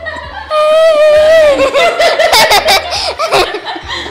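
Children laughing: first a long, high held voice note, then a run of quick giggles.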